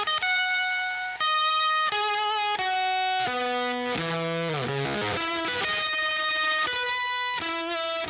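Electric guitar played through an EarthQuaker Devices Fuzz Master General fuzz pedal: a fuzzy single-note line of held notes. About four seconds in, one note slides in pitch.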